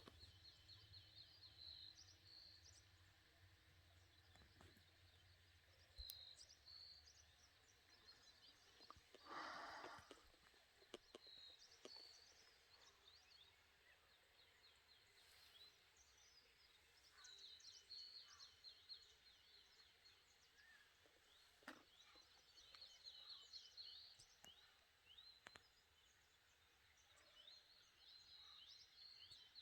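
Faint birdsong in mountain woodland: small birds repeating short high chirps and quick trills, with a brief breathy rush of noise about ten seconds in. The wild boar's snoring is not heard.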